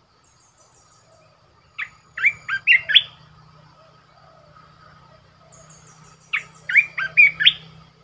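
A caged olive-winged bulbul (merbah belukar) singing two short, loud phrases about four seconds apart, each a quick run of about five sliding notes. Fainter, higher rapid twitters come just before each phrase.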